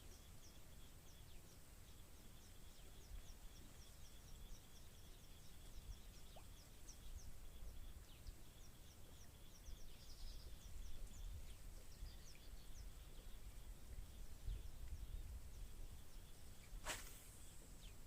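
Faint outdoor ambience: a small bird gives quick, high chirps, about three a second, which thin out after about twelve seconds, over a low rumble. One sharp click comes near the end.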